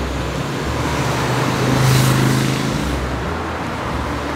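Road traffic: a car drives past, swelling to its loudest about halfway through and then fading, over a steady background hum of traffic.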